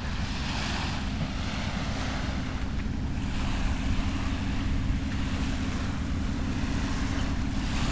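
Surf washing onto the beach in slow swells, over a low steady rumble.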